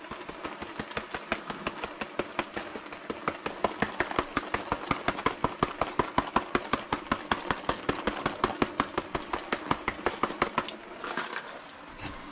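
Sea salt grinder being twisted over the cooking pot: a quick, even run of crunching clicks, about five a second, that stops near the end.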